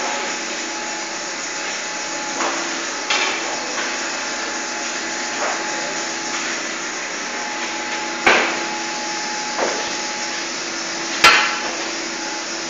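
Olive mill machinery running with a steady hum, broken by irregular sharp knocks every one to three seconds.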